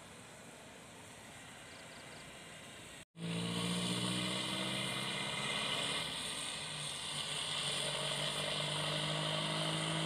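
Faint steady hiss for about three seconds. Then, after a cut, a vehicle's engine runs steadily with a constant hiss of road and wind noise while driving along a wet road.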